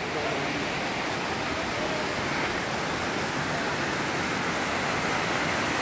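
Steady rush of water falling at a mountain waterfall, an even noise with no breaks.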